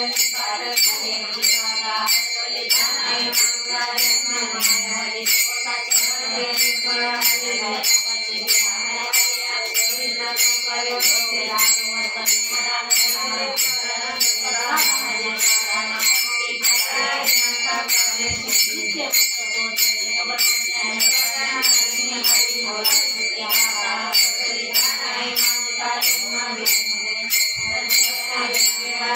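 Marathi devotional bhajan: singing voices over small hand cymbals (taal) struck in a steady beat of nearly two strikes a second, their ringing held between strikes.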